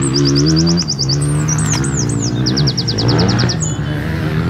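A songbird singing: two fast runs of quickly repeated notes with slurred whistles between them. Underneath, a steady engine drone from a vehicle, its pitch rising and falling a little.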